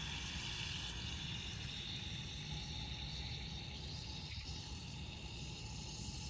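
Unknown white solid fizzing in water in a glass beaker: a steady fine hiss that slowly fades. The fizzing is a reaction with the water that warms the beaker.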